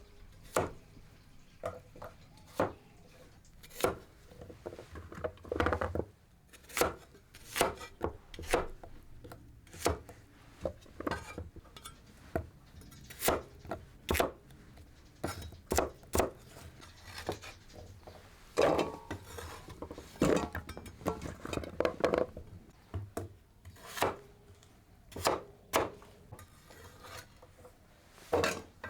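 Kitchen work: irregular knocks and clinks of utensils and dishes being handled, roughly one a second, with a few longer stretches of scraping.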